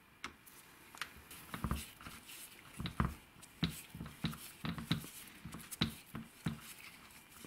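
Hand screwdriver turning a screw at the power-cord clamp in a hammer drill's plastic handle: a run of small clicks and knocks, about one every half second to second, starting about a second and a half in.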